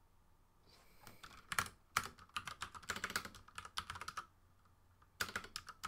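Typing on a computer keyboard: rapid runs of key clicks starting about a second and a half in, a short pause, then more typing near the end.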